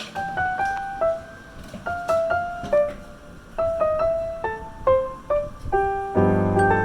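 Background piano music: a melody of single struck notes, swelling into a louder, fuller chord near the end.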